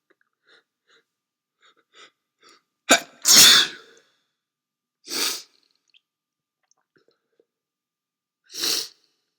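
A man with a head cold gives a loud sneeze about three seconds in, led by short in-breaths. Two shorter, softer bursts of breath noise follow, one near the middle and one near the end.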